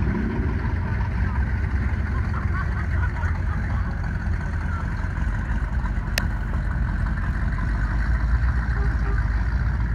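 Classic cars, a pickup truck and a dune buggy driving slowly past one after another, their engines running at low speed in a steady low drone. A single sharp click about six seconds in.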